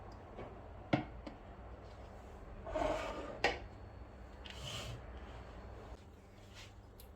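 Kitchen things being handled: a few sharp clicks and knocks with two short rubbing or scraping sounds, about three seconds in and near five seconds.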